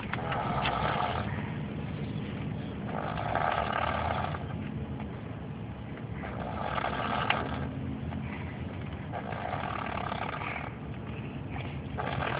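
A young boy snoring through a clogged nose, a rasping snore about every three seconds, five in all.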